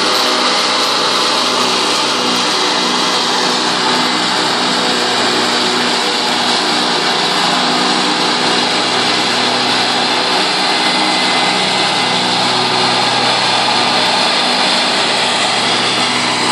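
Compact tractor engine running steadily under load while driving a rear-mounted rotary finishing mower, its blades spinning and cutting through grass and weeds.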